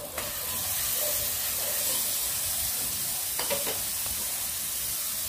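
Sliced pork loin hitting hot oil with sautéed onions in a wok: the sizzle jumps up as the meat goes in and carries on steadily. A few light clicks come about three and a half seconds in.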